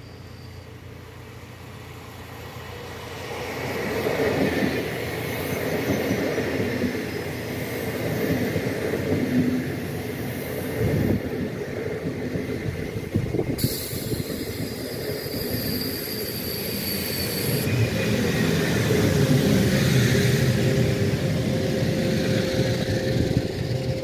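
Push-pull passenger train passing close at speed, its wheels running over the rails with a loud rumble that builds from a few seconds in. The ÖBB class 1144 electric locomotive pushing at the rear passes near the end, when the train is loudest; the class is nicknamed 'Alpenstaubsauger' (Alpine vacuum cleaner) for its loud blower noise. A high steady whine starts suddenly in the middle and stops about four seconds later.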